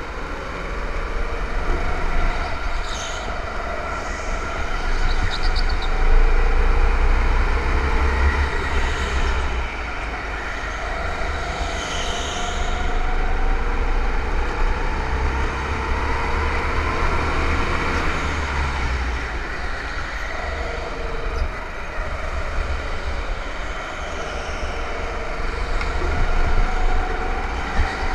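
Go-kart engine running at speed, its pitch rising and falling as it accelerates and slows, over a heavy low rumble.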